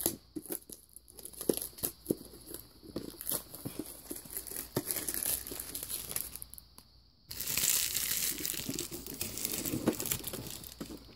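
Plastic shrink-wrap being torn and crinkled off a Pokémon card tin: scattered crackles and rustles at first, then a dense stretch of continuous crinkling from about seven seconds in.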